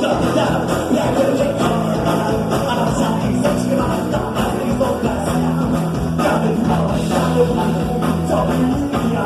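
Rock band playing, with a steady drum beat under sustained chords.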